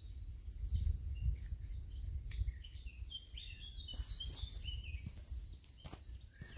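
Woodland ambience: a steady high insect drone runs throughout, with birds chirping over it. A low rumble sits underneath, and a few sharp clicks come about four seconds in and again near the end.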